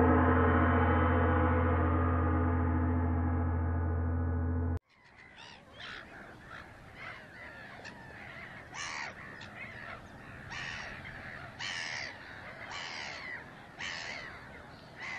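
A single deep, gong-like tone rings and slowly fades for about five seconds, then cuts off abruptly. After it, gulls call again and again over a soft background hiss.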